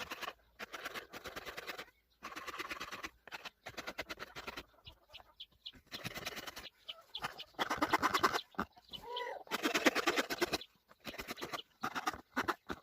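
Repeated scraping strokes of a hand tool on wood as an axe handle is shaped, coming in bursts of about a second with short pauses between them. A short chirp-like call is heard about nine seconds in.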